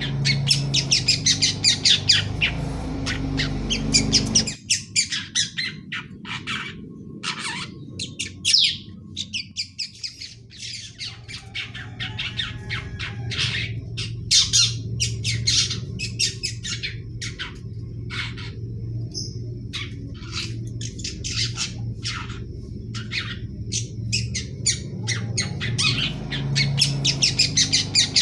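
Young long-tailed shrike (pentet) chattering: a juvenile practising its song in rapid runs of short, high calls, thickest near the start and end, over a low steady hum.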